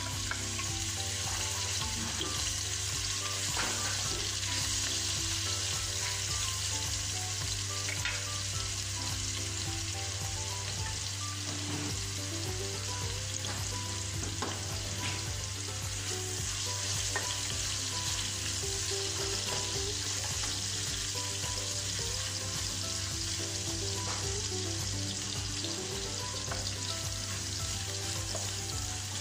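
Sliced ginger sizzling steadily in hot oil in a nonstick wok. Every so often a wooden spatula stirs it, with scattered light scrapes and taps.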